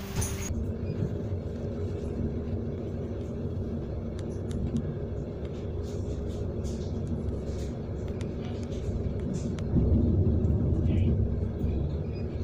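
Steady low rumbling running noise inside a moving passenger train carriage, with scattered small ticks and rattles. It swells louder about ten seconds in.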